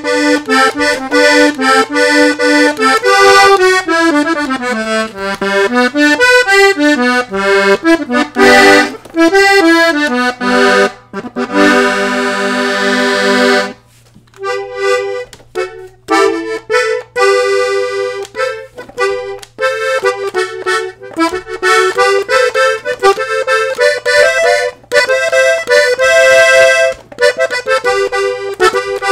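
Hohner Panther two-reed (MM) button accordion tuned in F (F–Bb–Eb) playing a quick melody with running notes. Near the middle a chord is held for about two seconds and cut off briefly before a rhythmic, chord-driven passage.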